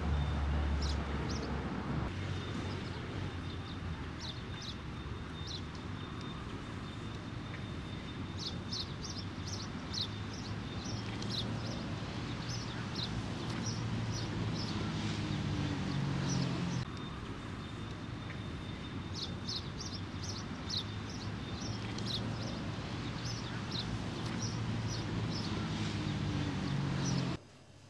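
Small birds chirping in quick clusters of short calls over a steady low hum; the sound stops abruptly just before the end.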